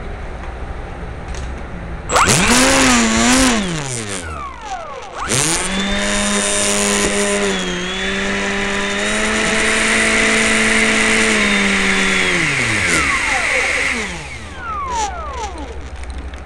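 RC electric ducted fan whining as its motor is throttled. First comes a short burst that wavers and winds down. Then a longer run holds a steady pitch with rushing air for about seven seconds before it spools down.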